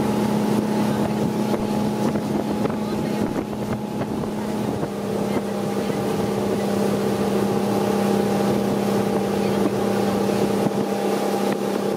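Yamaha outboard motor running steadily at speed, pushing a small boat, over the rush of wake spray and wind.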